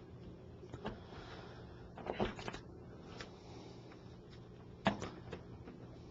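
Faint clicks and ticks of a small Phillips screwdriver backing out the tiny screws that hold a smartphone's ear speaker to the display bezel: a short cluster about two seconds in and a sharper single tick near five seconds, over a low steady hum.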